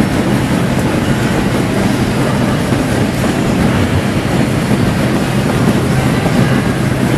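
Daffodil bulb cleaning machine running: the rotating bulb table and its electric motor, with the suction system drawing skins and dust off the bulbs. A steady low hum under an even, broad rushing noise that does not change.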